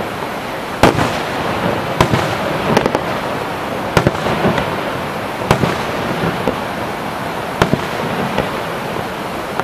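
Aerial firework shells bursting overhead: about six sharp bangs, one to two seconds apart, over a steady rushing background noise.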